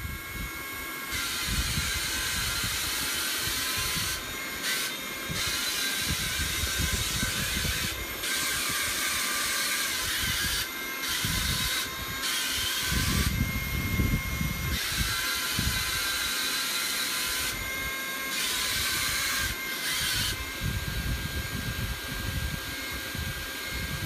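Wall-climbing RC toy car's suction fan and small electric motors whining steadily at a high pitch as it drives. The whine cuts out briefly several times.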